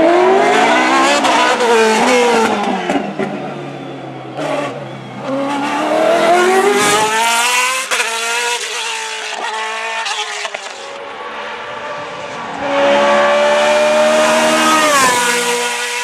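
Single-seater racing car engine at full throttle, its pitch climbing and dropping with each gear change. About seven seconds in it eases off, with a few short cracks from the exhaust. A second loud, high-revving stretch near the end drops sharply in pitch as the car goes by.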